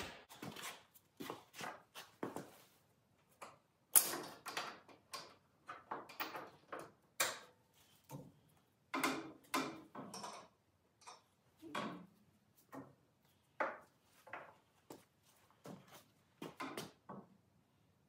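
A string of irregular clanks, clicks and knocks from steel parts and hand tools being handled, the loudest about four seconds in.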